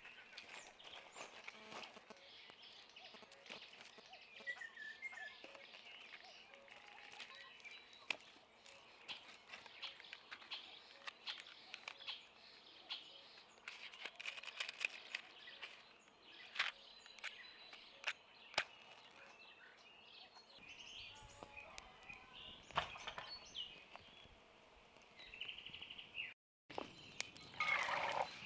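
Songbirds chirping in the background while dry sticks click and knock as they are broken and stacked for a small campfire. Near the end, a louder rush as dry grain is poured into a pan.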